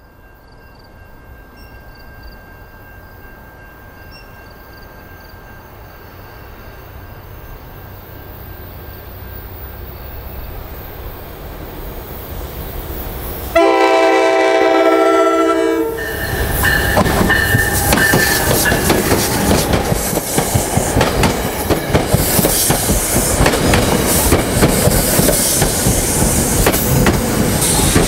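NJ Transit commuter train with MultiLevel coaches approaching, its rumble growing steadily louder. About halfway through it sounds one horn blast of roughly two seconds. It then runs close past with loud wheel-on-rail noise and repeated clicking.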